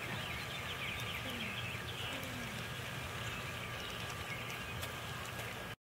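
Outdoor summer ambience: a dense, steady chorus of high chirping with a low rumble underneath, cutting off suddenly just before the end.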